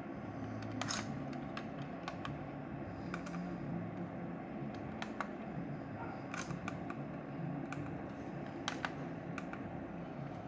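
A steady low hum from a running PC power supply, with about a dozen light, irregular clicks of handling.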